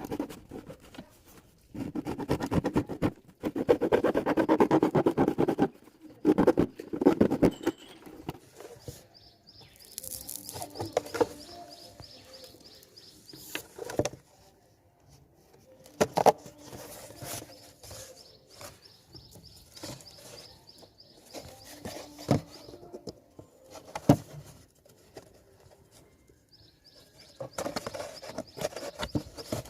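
Chickens clucking, with scattered sharp knocks and a dense rustling noise in the first few seconds.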